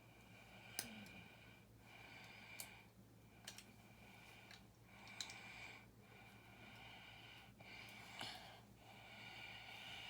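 Soft, slow breathing close to the microphone, with a few small sharp plastic clicks as toy-brick pieces are pressed down onto the build.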